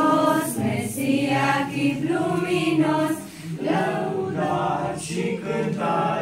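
School choir singing a Romanian Christmas carol (colindă) in held notes, with a short break for breath about three seconds in.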